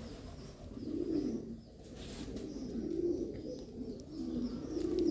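Domestic pigeons cooing: several low, rising-and-falling coos that overlap and repeat, with a few faint high chirps above them.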